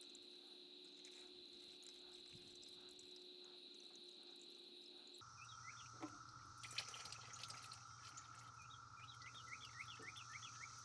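Faint steady drone of cicadas. From about halfway, engine oil starts dripping into the drain pan in a scatter of small plinks as the oil filter comes loose.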